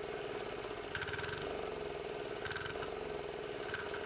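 Small single-cylinder air-cooled diesel engine running steadily on hydrodiesel fuel, its speed wavering slightly, with short bursts of harsher clatter about once every second and a half.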